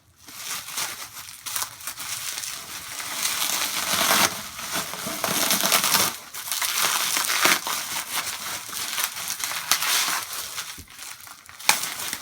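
Packing material crinkling and rustling while the parts of a cold air intake are handled and unwrapped, in a dense run of crackles that grows louder about a third of the way in.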